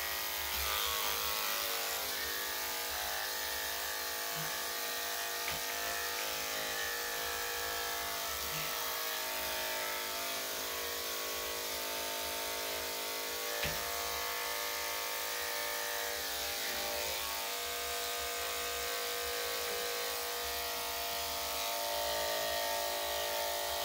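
Corded electric dog clippers fitted with a #10 blade, running with a steady motor hum as they shave the dog's coat down its legs.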